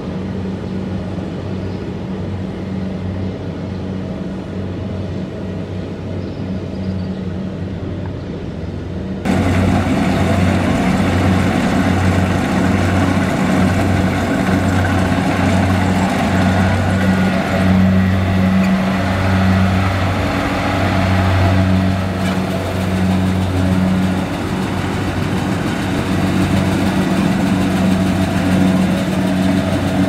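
Kubota DC-70 combine harvester's diesel engine running steadily under load while the machine cuts and threshes rice. The sound jumps suddenly louder and fuller about nine seconds in.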